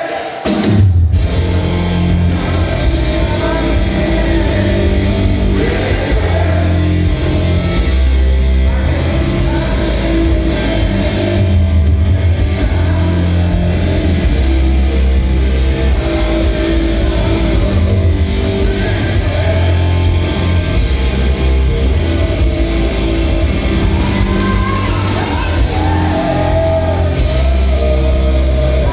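Rock trio playing live: electric guitar, bass and drum kit, with singing at times. The full band comes in with a sharp hit about a second in, after a brief drop, and then plays on steadily.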